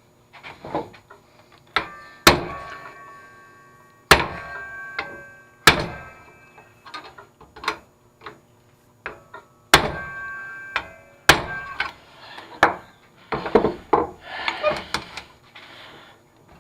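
Hammer blows on the rust-seized steel of an old reel mower, struck to break it free: about half a dozen hard strikes a second or more apart, each leaving a short metallic ring, with lighter knocks and clatter between.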